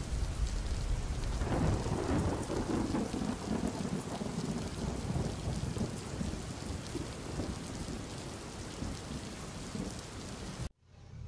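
Thunderstorm: steady rain with rolling thunder. A rumble swells about a second and a half in and slowly dies away. The sound cuts off suddenly near the end.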